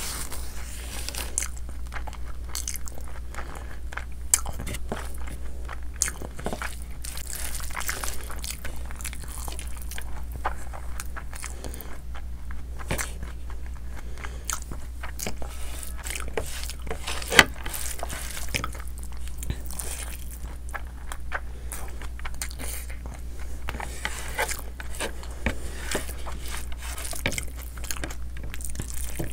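Close-up mouth sounds of a person eating chicken and rice by hand: wet chewing, biting and lip smacks with irregular small clicks, and one sharper click about halfway. A steady low hum runs underneath.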